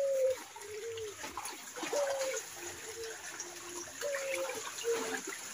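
Splashing and trickling of muddy pond water as hands grope for catfish, under a bird's low calls, each a short held note followed by a lower one, repeating about every two seconds.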